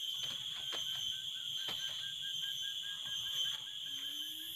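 Steady high-pitched drone of forest insects, with a second insect or frog calling in quick even pulses, about six a second, from about a second in. A few sharp clicks sound in the first two seconds.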